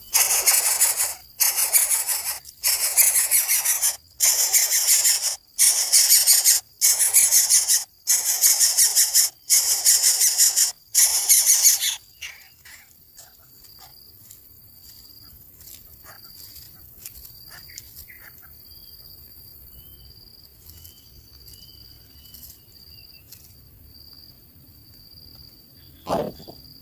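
Nestlings in the nest giving harsh, hissing screech-like begging calls in about ten bursts of roughly a second each, the hungry young calling for food. The calls stop about twelve seconds in. After that an insect's high, steady pulsing trill and a few faint chirps carry on, with a short call near the end.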